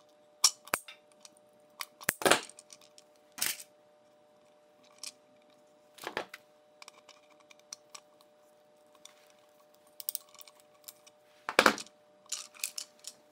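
Hand ferrule crimping tool and wires handled on a workbench: a scattering of sharp clicks and clacks, some in quick pairs, as ferrules are crimped onto cable ends and the tool is set down. A faint steady hum runs underneath.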